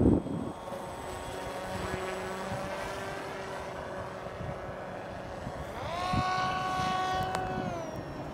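Small electric FPV flying wing's motor and propeller whining steadily; about six seconds in the pitch rises sharply, holds, then drops near the end as the throttle eases.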